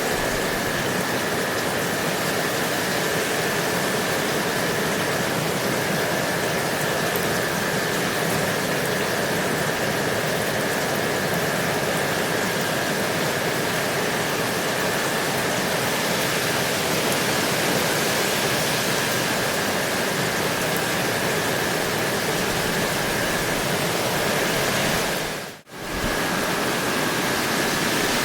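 Steady, even rain noise, a dense hiss with a faint high steady tone running through it. It drops out almost to silence for a moment about 25 seconds in, then comes straight back.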